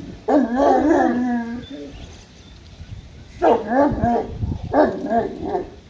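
Pakistani bully dog (bully kutta) giving loud, drawn-out, wavering barks: one long one shortly after the start, then three shorter ones in quick succession in the second half.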